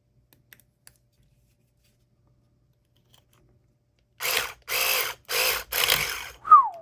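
Electric pumpkin carving saw converted into a lock pick, buzzing in four short bursts of about half a second each as it rakes a padlock. The bursts come after a few seconds of near silence, and a short falling squeal follows near the end.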